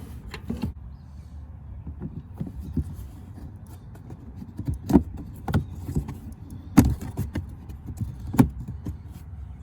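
Scattered clicks and knocks of hands working on the ATV: the oil dipstick being screwed back in and the fill caps put back on.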